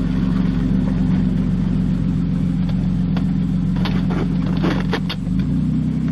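1998 Nissan Pathfinder's engine running steadily with no exhaust fitted past the headers, giving a loud, low rumble. A few light clicks come through midway, and the engine note shifts near the end.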